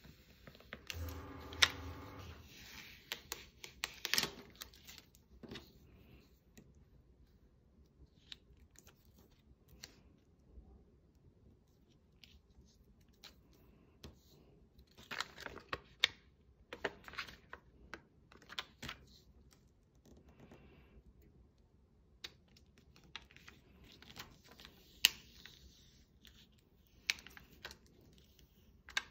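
Hands at close work: scattered small clicks, taps and scratching with short rustling, tearing bursts, busiest around the middle and again near the end. A brief steady hum sounds in the first couple of seconds.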